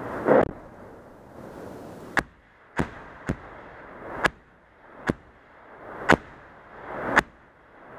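155 mm artillery and 81 mm mortar fire: about eight sharp booms in quick, irregular succession, a few swelling in briefly just before the crack.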